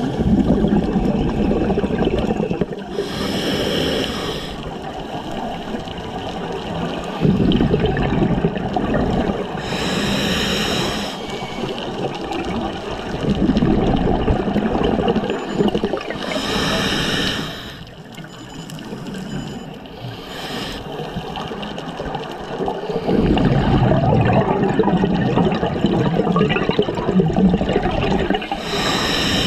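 Underwater sound of scuba breathing: five bursts of regulator exhaust bubbles, each about a second long and spaced roughly six to seven seconds apart, over a continuous low rush of water.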